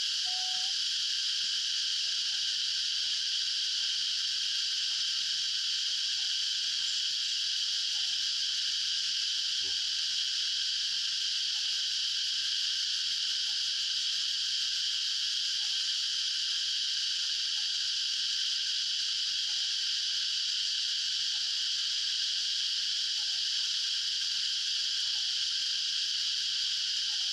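Steady, high-pitched insect chorus droning without a break, with faint short chirps beneath it.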